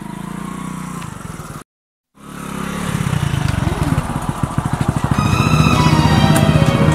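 Motorcycle engine running. The sound drops out completely for about half a second, then comes back as an evenly pulsing idle that grows louder.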